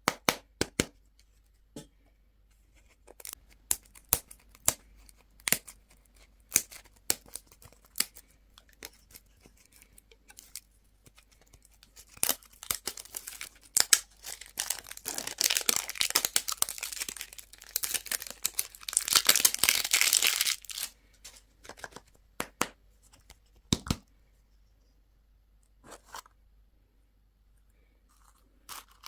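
Candy wrappers being crinkled and torn open by hand: scattered sharp crackles at first, then a dense stretch of tearing and crinkling from about twelve to twenty-one seconds in, then only a few clicks.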